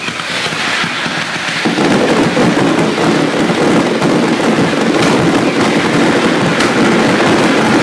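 Ground-level fireworks firing in a dense, continuous barrage of bangs and crackle, growing louder about two seconds in and staying loud.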